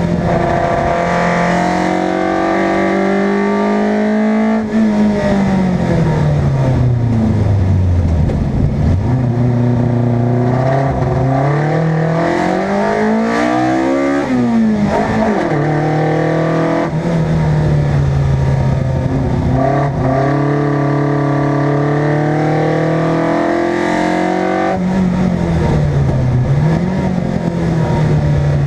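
A competition car's engine driven hard, its revs climbing and falling over and over. The revs drop away slowly after about five seconds and sharply around fourteen seconds, then pick up again, with quick rev changes near the end.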